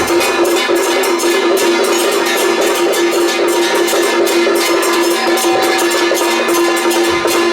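Taiwanese temple procession music: dense drum and cymbal strikes over one steady held note.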